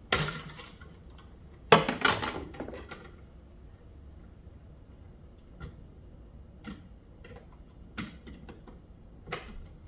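Wire cutters and hands working a ground wire at a switch box: two louder rasping bursts in the first three seconds, then a few sharp single clicks about a second apart.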